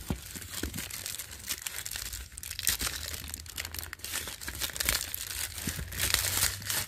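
Clear plastic wrap crinkling and tearing as it is pulled off a small cardboard box, a dense irregular crackle.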